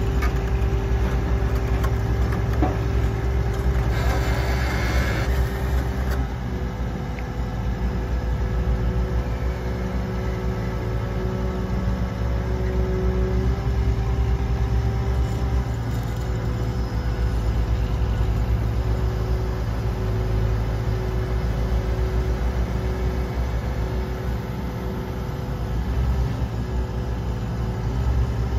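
Link-Belt 470X excavator's diesel engine running steadily as the boom is lowered and the bucket curled in, with a brief hiss about four seconds in.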